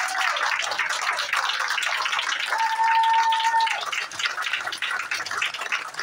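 Audience applauding steadily with many hands clapping. A single held high tone rises above the clapping about two and a half seconds in and lasts about a second.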